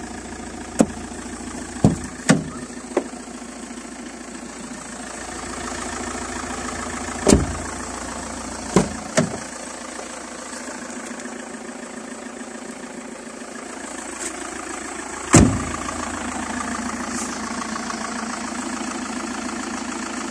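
Opel Astra H's 1.9 CDTI four-cylinder common-rail diesel idling steadily, with several sharp knocks over it, the loudest about seven and fifteen seconds in.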